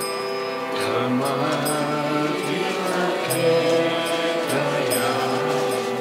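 Harmonium holding sustained chords under voices chanting a Bengali devotional bhajan, with small hand cymbals (kartals) clinking in a steady beat about twice a second.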